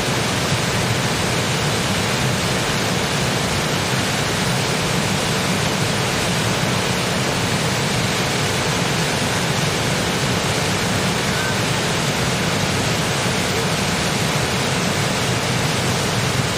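Waterfall: water crashing down in a loud, steady, unbroken rush.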